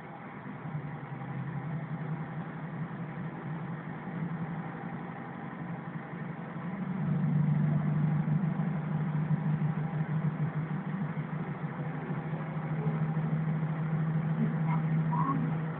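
Diesel engine of a Kashima Rinkai Railway 6000-series railcar pulling away from a station, heard through an open window: a steady low hum that gets louder about seven seconds in as the railcar accelerates.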